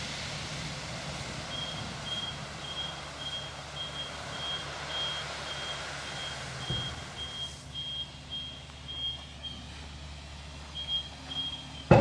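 Caterpillar 307 excavator running, its travel alarm beeping evenly about twice a second, pausing about three-quarters of the way through and starting again briefly near the end, with a few knocks over the engine rumble.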